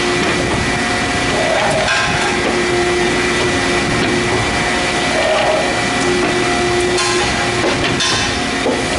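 CNC plate punching-and-shearing machine running: a steady mechanical hum with a whine that comes and goes as the table moves, and a few sharp knocks of the punch.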